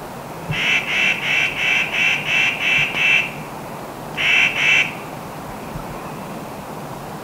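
An animal's harsh call repeated about three times a second, eight in a row, then two more after a short pause, over a steady rushing background.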